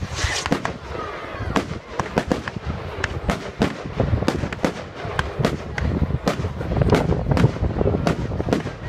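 Fireworks display: aerial shells bursting in a rapid, irregular string of bangs and crackles, a few each second.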